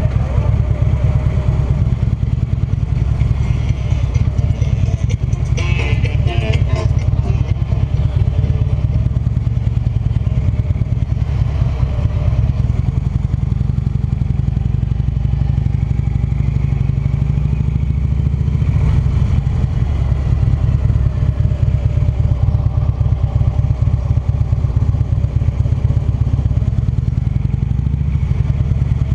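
Cruiser motorcycle engine running steadily at low road speed, heard from the rider's seat. A brief rattling burst of higher-pitched sound about six seconds in.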